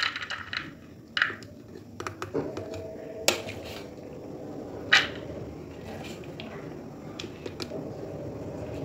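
A metal spoon scooping soaked chana dal and tipping it into a plastic chopper bowl: wet lentils rustle and patter as they drop, and the spoon clinks sharply against the plastic a few times. A low steady hum comes up about two and a half seconds in and carries on underneath.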